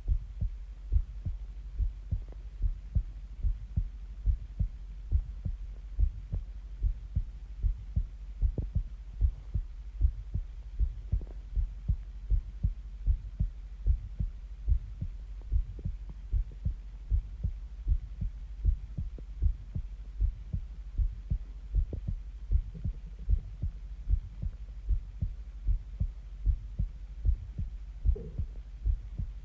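A person's heartbeat recorded close to the body: a steady, even rhythm of low thumps.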